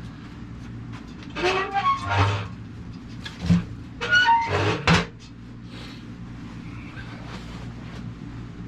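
Wood being loaded into a wood stove: two bursts of creaking and scraping with a few knocks, over a steady low mechanical hum.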